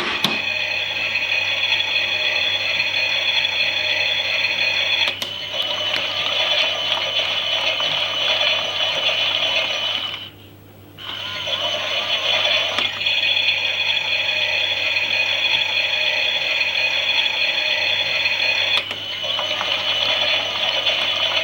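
Toy washing machine's small electric motor and gears turning the drum, a steady whirring whine with a mechanical rattle. It stops for about a second just after halfway, as the drum pauses, and the whine shifts twice.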